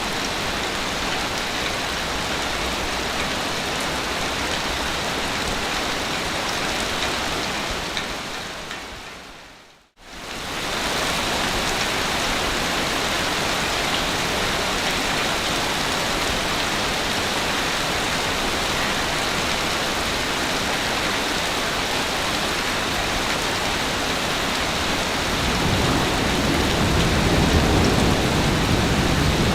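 Steady rushing water noise, like heavy rain or surf, that fades out to silence about nine seconds in and cuts straight back in. A deep rumble builds near the end.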